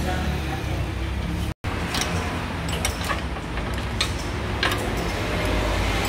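Car repair shop background: a steady low rumble with scattered light clicks and knocks, broken by a brief dropout about one and a half seconds in.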